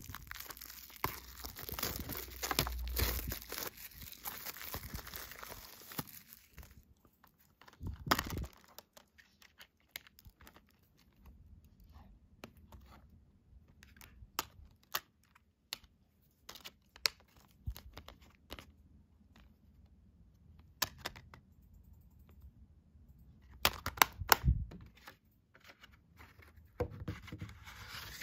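Plastic shrink wrap being torn and peeled off a Blu-ray case, crinkling for about the first six seconds. After that, scattered clicks, taps and knocks of the blue plastic Blu-ray case and its discs being opened and handled, with a louder cluster of knocks near the end.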